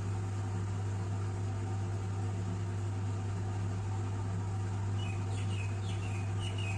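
Washing machine running with a steady low hum. About five seconds in, a few short, high squeaks come in quickly one after another.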